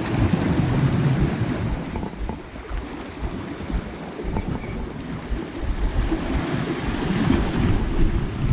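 Wind buffeting the microphone over the wash of sea waves along the shore, a steady, uneven rushing.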